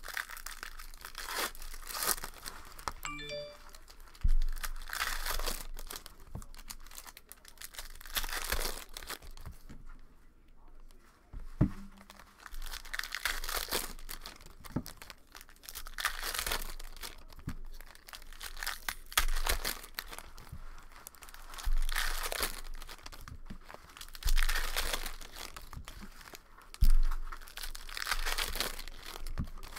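Foil wrappers of 2019 Panini Prizm football hobby packs being torn open and crinkled by hand, rustling in waves every few seconds, with a few dull knocks.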